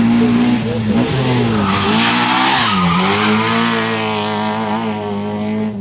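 Peugeot 205 rally car's four-cylinder engine revving hard, its pitch dropping sharply twice, about a second in and near three seconds, and climbing again as the driver lifts and gets back on the throttle.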